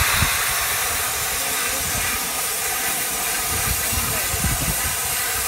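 Steam hissing steadily from Bulleid Merchant Navy class locomotive 35018 'British India Line', escaping around its front end and cylinders, over a faint uneven low rumble.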